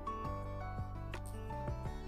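Background music with sustained notes and light, evenly spaced beats.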